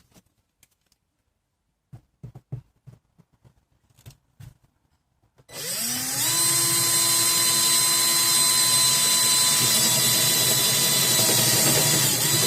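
A few light handling clicks and knocks, then about five and a half seconds in an electric drill starts, winds up in pitch and runs steadily, dipping slightly near the end.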